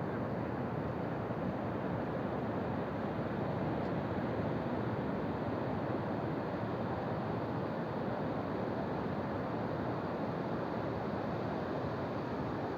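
Ocean surf and wind at the shore: a steady rushing noise, with no single wave break standing out.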